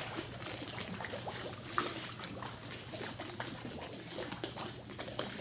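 Pool water splashing and lapping as swimmers move about, a light patter of many small splashes.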